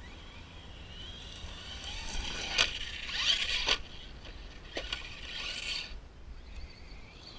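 RC truck's motor whining up, then the truck hitting the ground with several knocks and its tyres scraping over dirt and gravel as it tumbles and lands.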